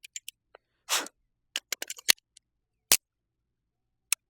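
Scattered metallic clicks and clacks of a Smith & Wesson M&P 380 Shield EZ pistol being handled while a failure to extract is cleared, with one sharper knock about three seconds in.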